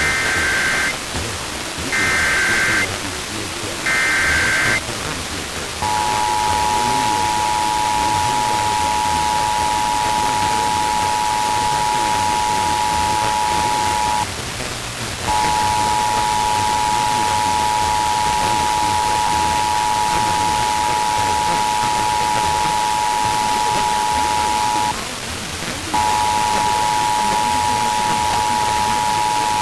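Emergency Alert System test signal over steady static hiss. It opens with three short bursts of screeching digital SAME header data, then the two-tone attention signal starts about six seconds in: a steady dual tone that drops out briefly twice and resumes.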